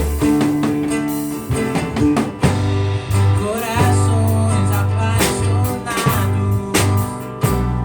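A live band playing a worship song in rehearsal: drum kit hits over held bass notes, with guitar.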